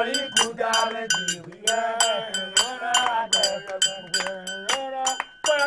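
Group singing accompanied by a metal bell struck in a quick, steady rhythm that rings with a clear high tone, along with hand clapping.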